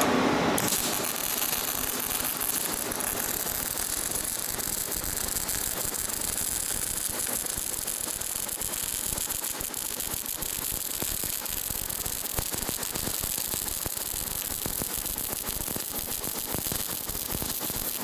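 Welding arc on a pipe giving a steady, dense crackle that starts about half a second in and runs on without a break.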